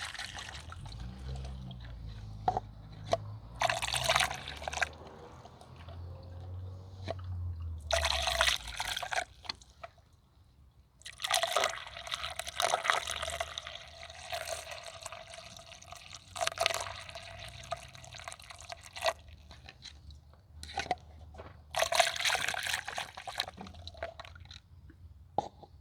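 Water poured through a funnel into a car's cooling system, topping off the coolant after antifreeze. It comes in several separate pours, the longest running from about 11 to 19 seconds in.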